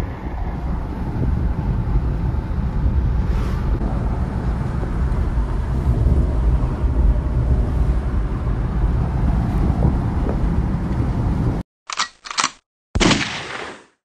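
Steady low rumble of a moving vehicle, with wind buffeting the microphone. It cuts out suddenly near the end, followed by a few brief chopped bursts of sound.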